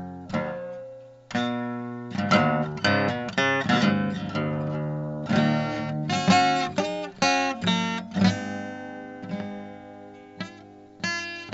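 Background music: acoustic guitar playing plucked notes and strums, each note ringing and dying away.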